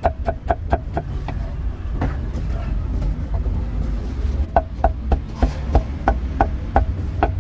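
Cleaver chopping roast meat on a wooden block: sharp knocks with a short ring, a quick run of several at the start, then after a pause a steadier run of about three chops a second. A low background rumble runs underneath.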